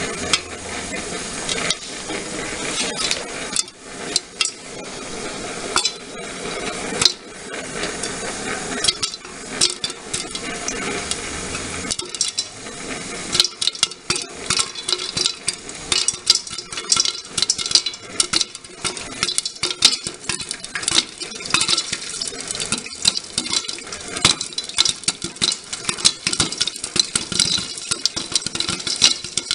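Popcorn kernels in hot oil in a covered pot with a glass lid: oil sizzling with a few scattered pops at first. From about thirteen seconds in, the popping quickly grows into a dense, rapid crackle of many pops.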